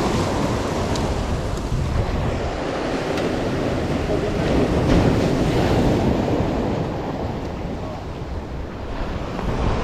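Rough sea surf breaking and washing against the boulders of a rock breakwater, with wind buffeting the microphone.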